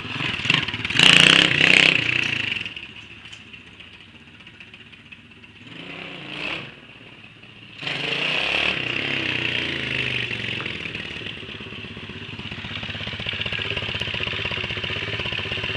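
A 140 cc pit bike's single-cylinder four-stroke engine. It revs hard twice in the first two seconds, then fades off, gives a short rev about six seconds in, and from about eight seconds runs loud and steady close by.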